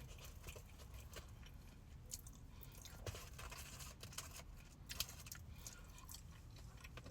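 Faint close-up chewing of a deep-fried crab cake, with scattered small crunchy clicks; the loudest comes about five seconds in.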